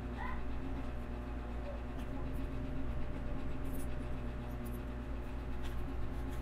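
Faint clicks and rustling of LEGO pieces being handled and snapped together, over a steady low hum.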